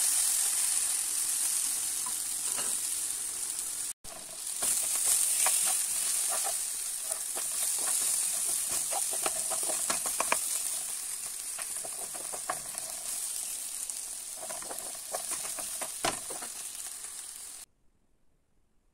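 Sliced bitter gourd sizzling steadily in hot oil in a nonstick frying pan, with repeated clicks and scrapes of a utensil stirring it against the pan. The sizzle cuts off abruptly near the end.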